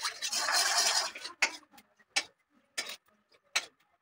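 Kitchen utensil sounds while cooking: about a second of scraping or rustling clatter, then four sharp knocks spaced evenly about two-thirds of a second apart.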